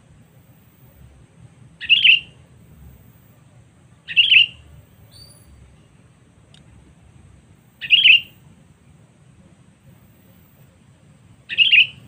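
Sooty-headed bulbul calling: four short, bubbly calls, each about half a second long and spaced a few seconds apart.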